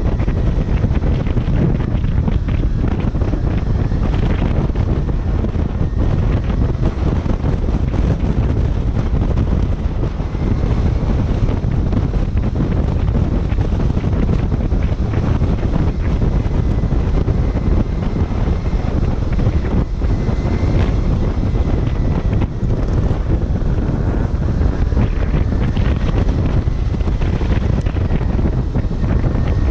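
Steady heavy wind buffeting on the microphone of a camera riding on a moving Kawasaki Ninja 250. The bike's sound is buried beneath the rush.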